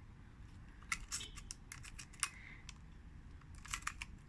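Small mechanical clicks from handling a Pentax Auto 110 film camera's controls. They come singly and in short clusters: about a second in, a little after two seconds, and several near the end.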